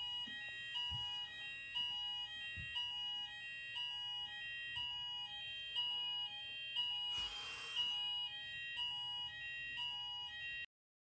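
Background music: a bell-like melody of short stepping notes over a few soft low thumps, with a hissing cymbal-like swell about seven seconds in. It cuts off abruptly near the end.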